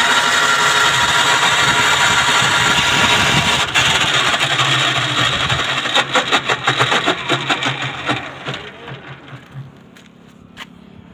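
E-rickshaw rear gearbox (differential) running under its electric motor with a loud whine and harsh grinding. About six seconds in it winds down into a rapid rattling clatter that fades away. The mechanic takes the noise for a broken bearing inside the gearbox.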